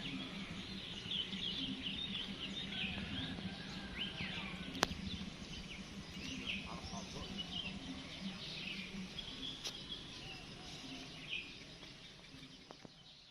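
Many small birds chirping and twittering over a low hum that pulses about once a second, with two sharp clicks; the sound fades out near the end.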